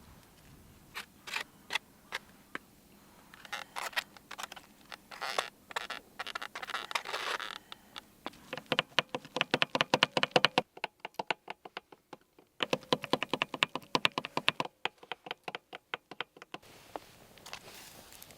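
A knife chopping rapidly on a cutting board: a few scattered taps at first, then a long run of quick, even strokes, about ten a second, that stops briefly twice.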